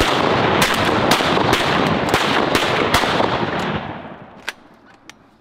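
A volley of shotgun fire from several hunters: a rapid string of shots, some only a fraction of a second apart, that fades about four seconds in, followed by one more shot about a second later.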